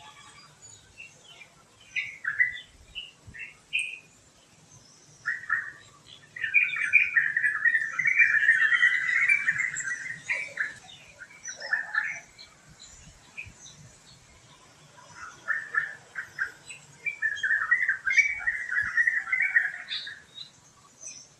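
Birds chirping: a few short calls at first, then two long stretches of rapid, chattering song, one in the middle and one near the end.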